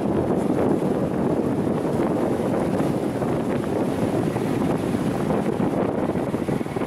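Steady wind buffeting the microphone on a boat under way, over the rush of choppy harbour water.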